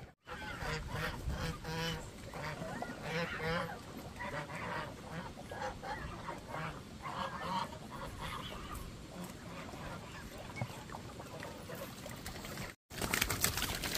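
Flock of domestic ducks calling, with repeated harsh quacks, busiest for the first several seconds and then thinning out.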